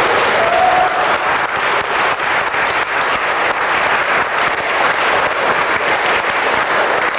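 A crowd of guests applauding, with dense, steady clapping throughout.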